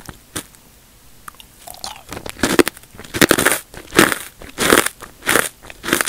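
Crunchy square potato and sweet potato chips being chewed close to the microphone: a few faint mouth clicks, then from about two seconds in a regular run of loud crunches, roughly one every three-quarters of a second.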